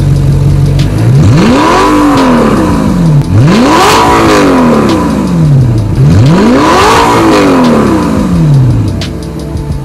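Audi R8 with an Armytrix titanium valvetronic exhaust, standing still: the engine idles, then is revved three times, each rev climbing quickly and dropping back over two to three seconds, and it settles back toward idle near the end.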